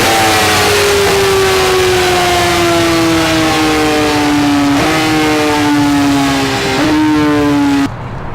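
BMW race motorcycle engine running at high revs. Its pitch drops sharply right at the start, then falls slowly, and the sound cuts off abruptly near the end.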